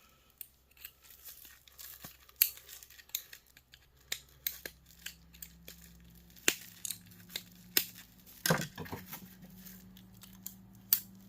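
Irregular sharp clicks and snaps of metal and plastic heater parts being handled and pried apart with a hand tool, with a few louder snaps.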